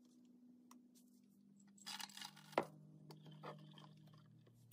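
Pecans tipped into a metal saucepan of caramel sauce: a short rustle ending in a sharp knock about two and a half seconds in. Then light scrapes and clicks as they are stirred with a spatula.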